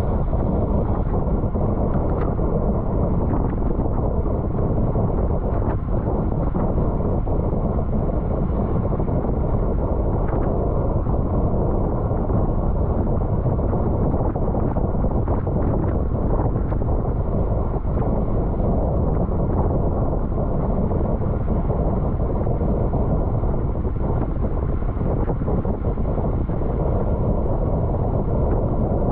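Steady wind rushing over the microphone of a bicycle rider at race speed, with a few faint ticks through it.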